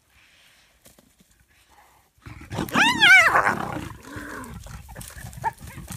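A spotted hyena and a leopard squabbling over a kill: after a quiet start, a loud quavering cry about two and a half seconds in, then a lower growling call and scuffling.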